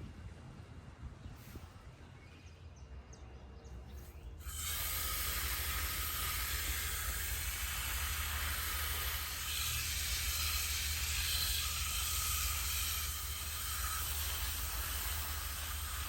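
A steady hiss that starts suddenly about four seconds in, with a low rumble under it.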